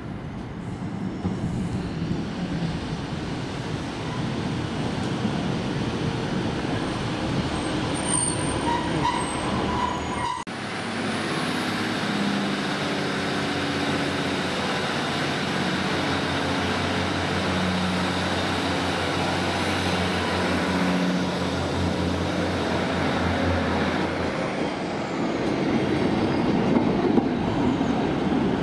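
A Class 156 Sprinter diesel multiple unit running into the platform. After a sudden break about ten seconds in, its underfloor diesel engines idle steadily with a thin high whine over them. The engines grow louder near the end as the train pulls away.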